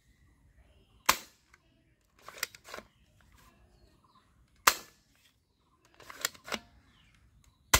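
Toy gun being fired: three sharp snaps a few seconds apart, with quieter clicks of handling or cocking before the second and third shots.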